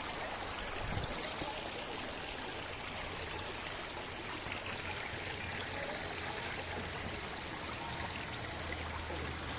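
Forest stream running steadily, a continuous rush of water, with a brief low thump about a second in.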